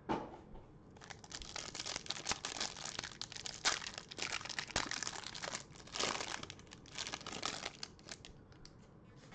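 Plastic wrapper on a trading-card pack crinkling and tearing as gloved hands peel it open. It makes a dense run of crackles that dies away near the end.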